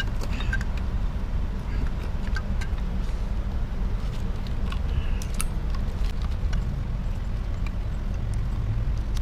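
Steady low rumble with a few faint metallic clicks and taps as the Honda EX5 engine's right crankcase cover and auto clutch are lifted off the crankcase.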